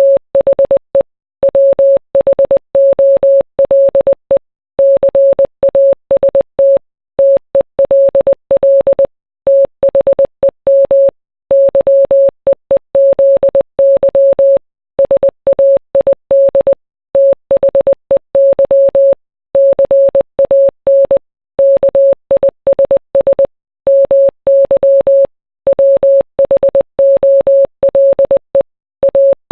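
Morse code: a single mid-pitched beep tone keyed on and off in quick dots and dashes, with short gaps between letters and words. It is a Morse code rendering of a song.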